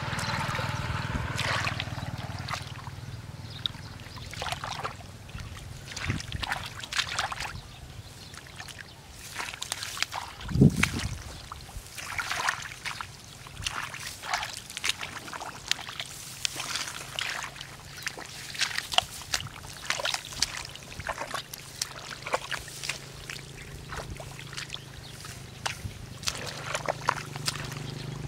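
Hands digging and scooping through wet mud and shallow muddy water, irregular squelches and splashes, with one louder slap about ten seconds in.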